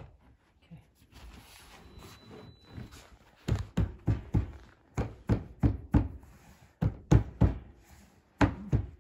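Rustling, then a run of dull thumps, two or three a second, starting about a third of the way in: the sofa bed's upholstered backrest being pressed and knocked down into its metal brackets on the frame.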